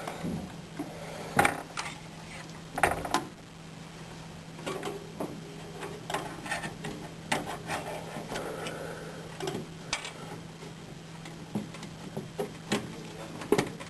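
Scattered clicks, knocks and light scrapes of hardware being handled inside a desktop computer case: a graphics card being fitted into its slot and screwed down. A steady low hum runs underneath.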